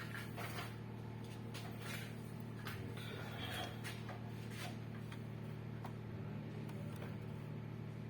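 A steady low electrical hum with faint, irregular light clicks and taps over it.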